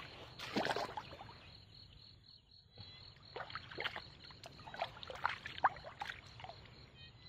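A person in rubber waders wading in shallow pond water, sloshing and splashing in irregular strokes as legs and a gloved hand move through the water, with a brief lull about two seconds in.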